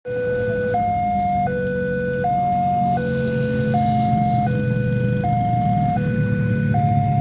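Railway level-crossing warning siren sounding its two-tone alarm, alternating low and high tones, each held about three-quarters of a second, over a steady low rumble.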